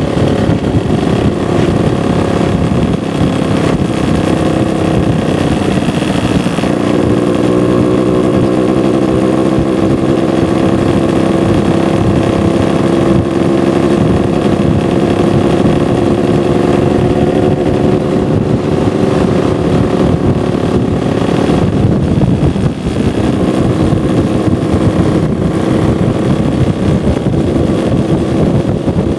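Scooter engine running at a steady cruising speed, under heavy wind rush and buffeting on a helmet-mounted microphone. About two-thirds of the way through the engine note drops briefly as the throttle eases, then picks up again.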